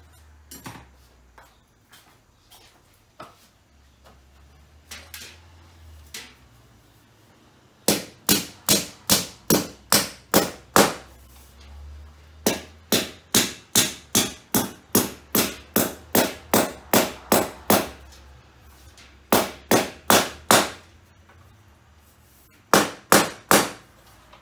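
Hammer striking in quick runs of about three blows a second, driving in hammer-drive anchors. There are four runs, the longest about five seconds, with short pauses between them.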